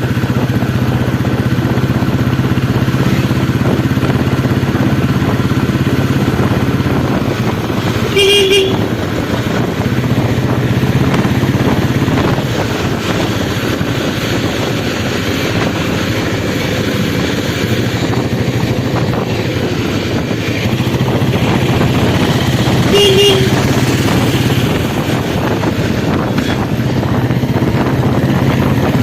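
Royal Enfield Bullet's single-cylinder engine running steadily, with two short horn toots about fifteen seconds apart.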